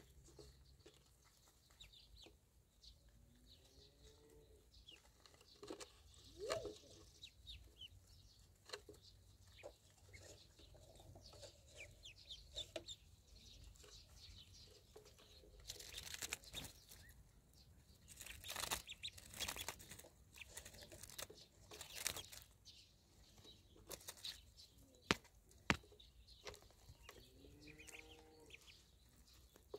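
Ducklings foraging in grass, faint: scattered high peeps with rustling and small pecking clicks, busiest in the middle. A low clucking call comes twice, about four seconds in and near the end.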